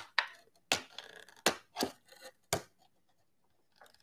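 Hands handling plastic action-figure packaging: about half a dozen sharp clicks and crackles in the first two and a half seconds.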